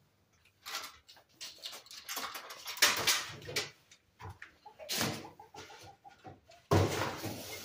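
Chickens clucking, with several short scraping and knocking noises in between; a run of short repeated clucks comes about five seconds in.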